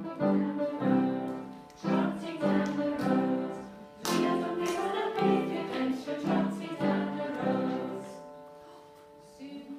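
Music with singing: a short sung tune of held notes, dying away near the end.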